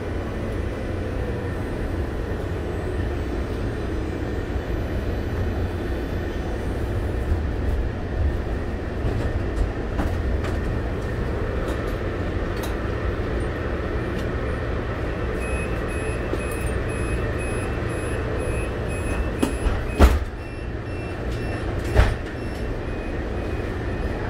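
Interior sound of a Siemens SD160 light-rail car running and pulling into a station: a steady low rumble. Faint repeating beeps come in over the last third, and two sharp knocks about two seconds apart come near the end.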